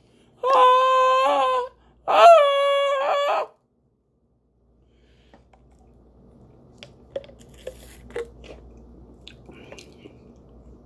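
A man hums two held, wavering notes of a tune, then sips from a bottle through a metal straw, with faint slurping and small clicks.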